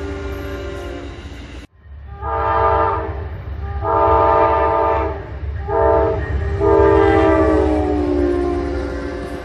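Amtrak GE P42DC diesel locomotive's multi-note air horn blowing the grade-crossing signal, long, long, short, long, over the low rumble of the approaching train. Before it, the tail of another horn note cuts off abruptly about a second and a half in.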